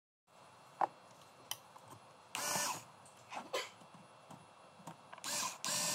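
Small cordless power screwdriver or drill running in two short bursts, each spinning up into a steady whir, with a sharp click shortly before and a few light clicks between.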